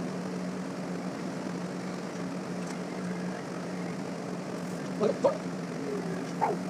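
A steady low mechanical hum with a faint background hiss. A few brief squeaky, voice-like sounds come about five seconds in and again near the end.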